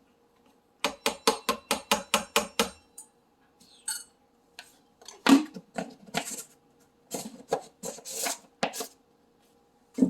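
A measuring cup knocked quickly against a mixing bowl about ten times in under two seconds, then several scraping, scooping sounds of dry powder in the bowl.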